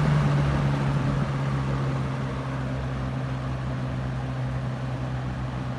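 1972 Galaxy model 3713 20-inch box fan running, switched down to its low speed: a steady motor hum with the rush of air from the blades, getting gradually quieter over the first two or three seconds as the fan slows, then holding steady. Its low setting is still fairly fast, more a medium low.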